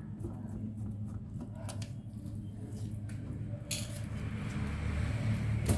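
Small clicks and clatter of tools and parts being handled on an electronics repair bench, over a steady low hum, with a sharper knock about four seconds in and another near the end.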